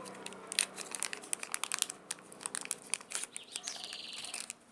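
Plastic wrapper crinkling and crackling in the hands in a quick irregular run of sharp crackles, with a brief higher rasp near the end.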